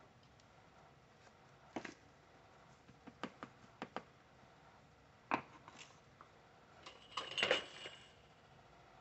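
Light handling sounds on a work mat: a few sharp little clicks and taps, then a short burst of rubbing and scraping near the end, as a round plastic powder container is handled and a ball of cold porcelain is dusted with powder.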